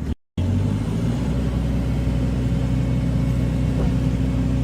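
A car running with a steady low rumble, after a moment's dropout at the very start.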